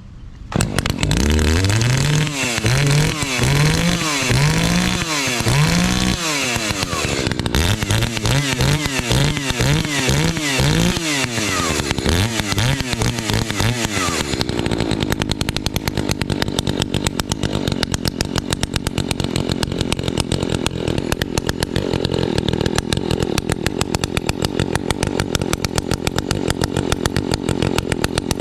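Two-stroke chainsaw with a muffler mod being revved in quick repeated throttle blips, its pitch rising and falling over and over, for about the first fourteen seconds. It then settles into a steady, lower-pitched run with an even firing rhythm.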